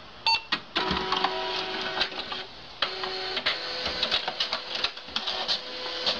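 Inkjet printer printing: the paper-feed and print-head mechanism running with a rapid, irregular series of clicks and clacks. A loud short clack with a brief high tone comes near the start, and a steady hum tone joins about halfway through.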